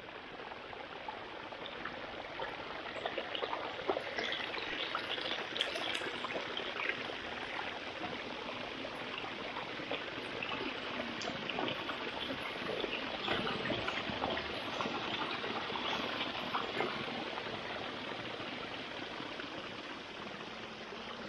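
Small forest stream running and trickling, with a steady rush of flowing water and fine splashing.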